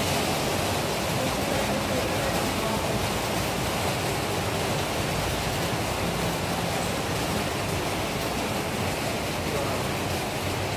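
Steady, even hiss of background noise with faint, indistinct voices murmuring under it.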